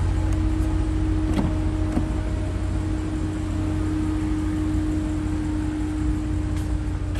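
Steady low hum with a constant mid-pitched tone running through it, and a couple of light clicks about one and a half and two seconds in.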